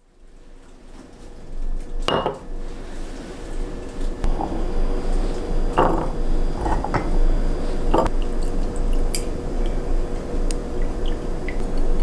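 Glassware clinking and knocking on a kitchen counter as a clip-top glass jar, its glass lid, a stemmed glass and a wooden spoon are handled: a few sharp knocks about two, six, seven and eight seconds in, with lighter ticks after, over a steady low hum.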